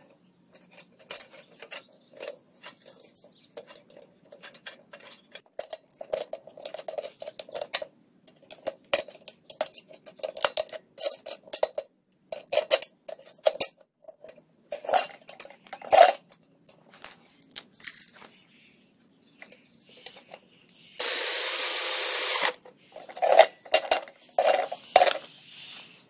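Irregular clicking, tapping and clinking of hard objects. About three-quarters of the way through, a loud hiss-like noise lasts about a second and a half.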